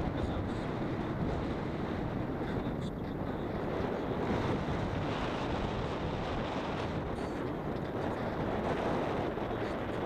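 Car driving along a worn, patched asphalt road: steady tyre and engine noise.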